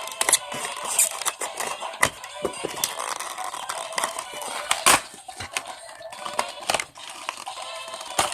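Plastic and cardboard toy-figure packaging being handled and opened: irregular clicks, taps and crinkles, with a louder snap about five seconds in.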